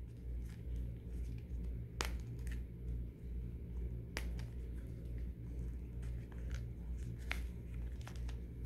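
Hands turning over a Motorola flip phone in a black leather case: a few sharp clicks about 2, 4 and 7 seconds in, and light rustling of the leather, over a steady low hum.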